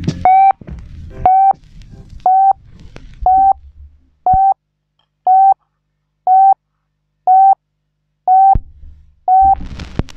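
Reggae dub passage built on a short electronic beep repeating about once a second. The bass and drums drop out about four seconds in, leaving the beeps alone, and come back near the end.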